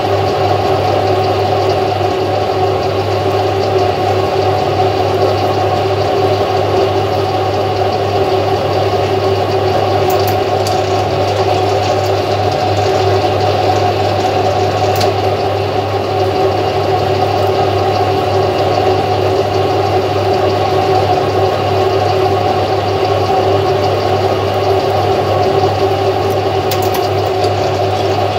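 Metal lathe running steadily with its chuck spinning at a constant speed: an even motor and gear hum, with a few faint ticks now and then.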